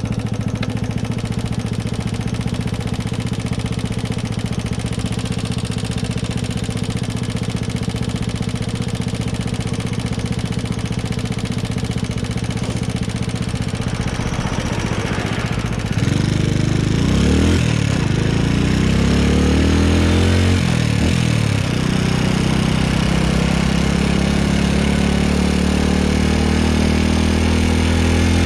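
Honda Super Cub's single-cylinder four-stroke engine running on the move, steady at first. About halfway through it gets louder and its pitch rises and falls a few times as it revs, then holds a higher steady note.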